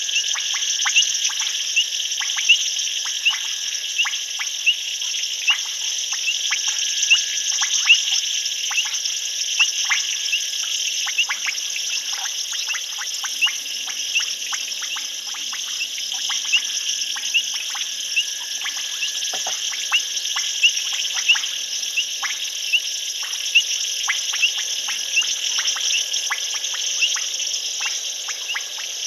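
Night chorus of insects and frogs: a steady high-pitched trilling with frequent short, sharp clicking calls, about one or two a second.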